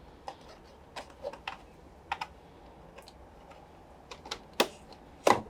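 Irregular light plastic clicks and taps as a wiring-harness connector is handled and pushed onto a washing machine's control board, with one louder click near the end.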